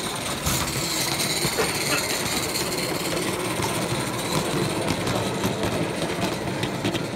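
Modified Mamod live-steam 0-6-0 model locomotive running past with its coaches on 16mm-scale track: a steady rattle with many quick clicks from the wheels on the rails.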